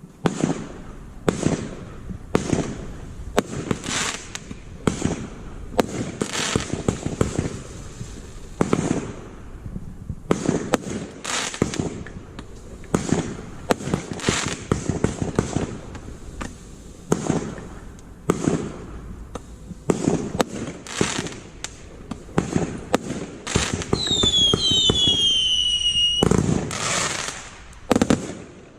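Guy Fawkes Ammo Crate 1.3G firework cake firing a long run of shots with bursting bangs and crackle. Near the end several whistles fall in pitch over a louder stretch of firing, then a final heavy volley.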